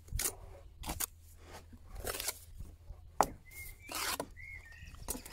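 Bricklayer's steel trowel scraping sticky mortar and knocking against building stone as a stone is bedded and its joint is trimmed: a run of short scrapes and taps, with one sharp click about three seconds in.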